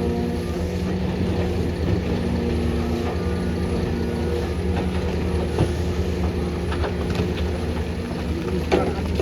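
Heavy construction machinery's diesel engine running steadily, with a few short knocks and clanks in the second half.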